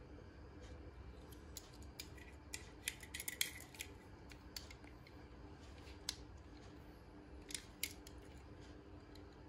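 Faint clicks and taps of a small die-cast toy car being turned over in the fingers, a quick cluster of them about three seconds in, over a low steady hum.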